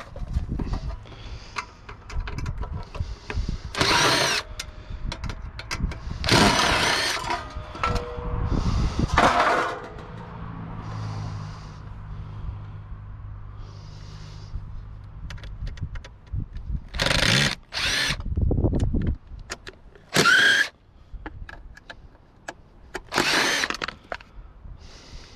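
Power drill running in short bursts as screws are driven out of a water cooler's casing, some bursts rising in pitch as the drill spins up. A low steady hum runs for several seconds in the middle.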